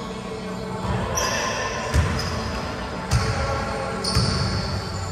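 Basketball bouncing on a hardwood court, a few thuds about two, three and four seconds in, with short, high sneaker squeaks on the floor in a large gym.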